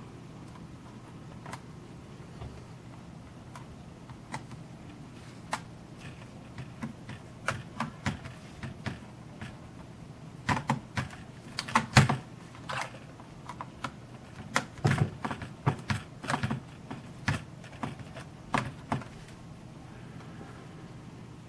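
Irregular small clicks and taps of a precision screwdriver and fingers on the casing of a Sony Mavica digital camera as its screws are driven back in. The clicks are sparse at first and come thickest in the second half.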